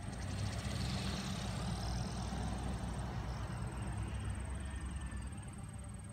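A pickup truck driving across the railroad grade crossing, its engine and tyre noise swelling about a second in and then fading, over a steady low rumble.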